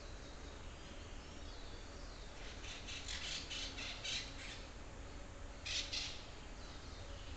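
A forest bird calling in a rapid series of short, high notes, about five a second for two seconds, then two more notes near the end.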